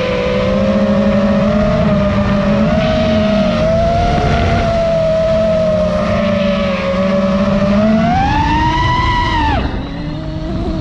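FPV quadcopter's brushless motors whining at a steady, wavering pitch. About eight seconds in they climb higher as throttle goes up, then drop away sharply near the end as the throttle is chopped and the quad rolls upside down.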